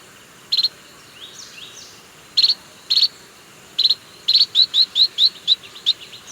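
White-rumped munia calling: short, high chirps, at first one at a time and then a fast run of about five a second in the second half. Fainter sliding notes sound between the chirps.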